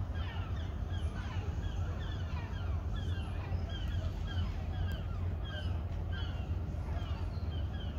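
Many gulls calling over and over, short downward-sliding cries, over a steady low rumble.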